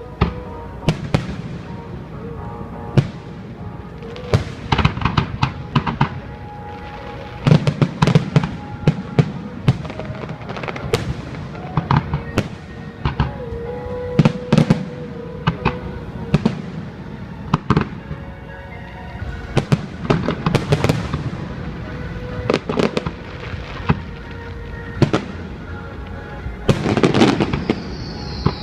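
Fireworks display: aerial shells bursting in an irregular series of sharp bangs and crackles, in flurries with short gaps, building to a dense barrage near the end.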